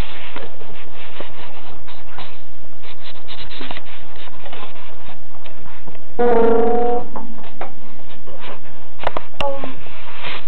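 Rustling and rubbing of the camera being handled. About six seconds in, one loud, steady pitched tone sounds for under a second.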